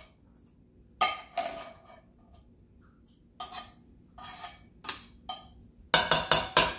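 Metal spoon knocking and scraping inside a tin can while condensed cream of chicken soup is scooped out into a stockpot: a few separate clinks, then a quick run of about five sharp taps near the end.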